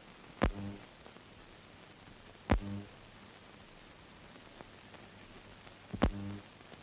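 Three sharp knocks, each followed by a short low ringing, over a steady hiss.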